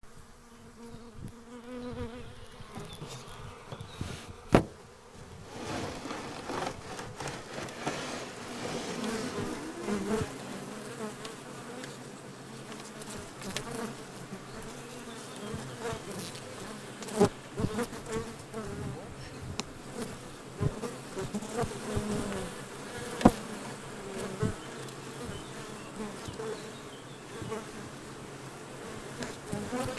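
Honeybee colony buzzing inside a Japanese-type box hive, a dense steady hum that swells after the first few seconds. A few sharp knocks or clicks sound over it, the loudest at about 4.5, 17 and 23 seconds in.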